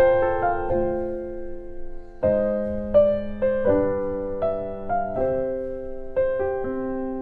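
Background piano music: slow, soft chords and single notes struck and left to ring.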